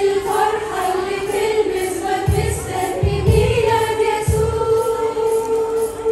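Women's choir singing a hymn through microphones, holding long, steady notes, with low beats of the accompaniment coming in about two seconds in.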